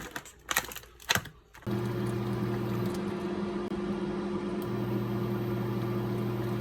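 A few sharp clicks, then a household appliance starts about a second and a half in and runs with a steady low electrical hum and whir.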